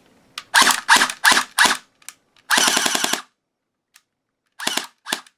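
Umarex HK MP7A1 0.5-joule airsoft electric gun test-fired with its gearbox just reassembled. It fires four single shots, then a rapid burst of under a second, and two more single shots near the end.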